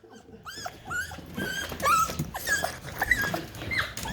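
Pet dog whining in a string of short high calls that rise and fall in pitch, about three a second, as it greets its returning owners.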